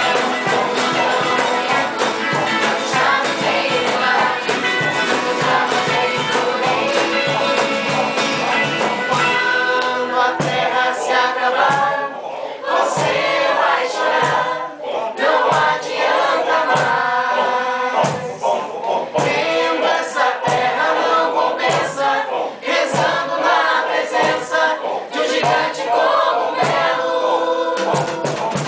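A group of young voices singing together as an amateur choir, with a strummed acoustic guitar keeping a steady rhythm.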